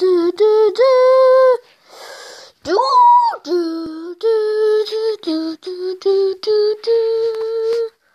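A voice singing a wordless tune, one syllable per note, the notes held at steady pitches with a short upward slide about three seconds in.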